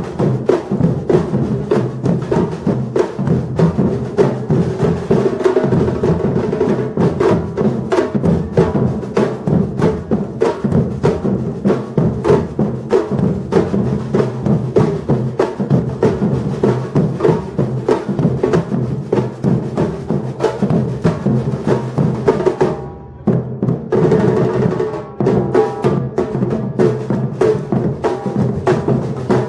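Batucada drum ensemble playing a fast, dense, driving rhythm. The drums drop out briefly about 23 seconds in, then come back in quieter and build back to full strength.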